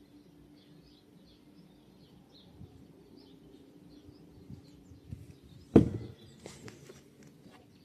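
A small bird chirping over and over, about twice a second, above a faint steady low hum. About six seconds in comes one loud thump, followed by a few light clicks.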